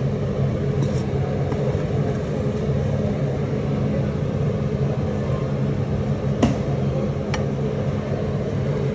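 A steady low mechanical hum, with two light metallic clicks of a serving utensil against a metal chafing dish about a second apart near the end.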